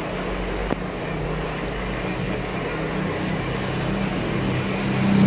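An engine running steadily in the background, getting louder near the end, with one sharp click under a second in.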